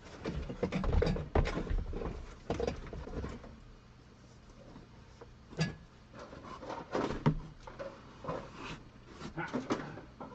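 Irregular knocks, clunks and rattles of car interior parts being handled and pulled loose during a dashboard teardown.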